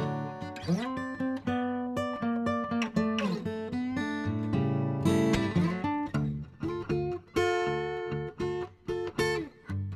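Background music: guitar playing, strummed and picked, with some notes sliding in pitch.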